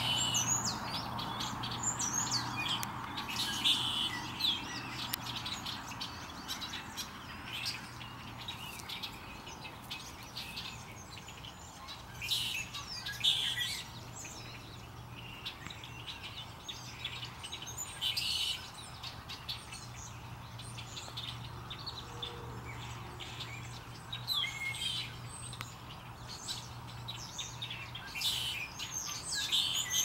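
A flock of small birds chirping and singing together, a busy run of short chirps and gliding whistles that comes in clusters, over a faint steady low hum.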